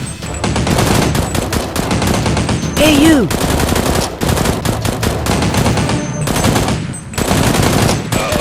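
Rapid automatic gunfire sound effects, long volleys of shots fired in quick succession. A short pitched sound, rising then falling, cuts in about three seconds in.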